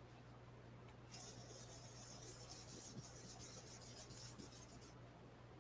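Faint, rapid scratchy rubbing of a round blending brush's bristles working ink onto cardstock. It starts about a second in and stops near the end.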